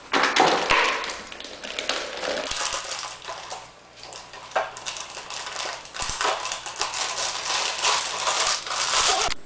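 Plastic bag crinkling and rustling as a computer power supply and its cables are unwrapped from it, with molded paper-pulp packaging trays being handled.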